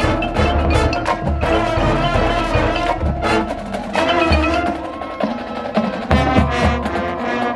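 Marching band playing an instrumental passage: held brass and wind chords over regular bass drum hits and sharp percussion clicks.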